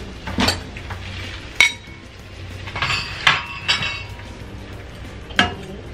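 A bowl and a spatula knocking against a frying pan as raw chicken pieces are tipped in and spread out: about six sharp clinks and knocks, one ringing briefly about a second and a half in.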